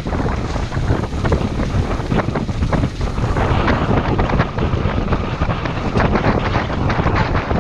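Strong wind buffeting the microphone, a loud steady low rumble with many short irregular crackles and taps over it.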